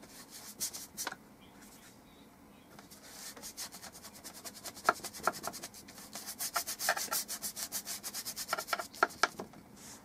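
Stiff bristle brush scrubbing oil paint onto a paper panel with scratchy strokes: two strokes about half a second and a second in, then from about three seconds a fast run of short back-and-forth strokes that stops just before the end.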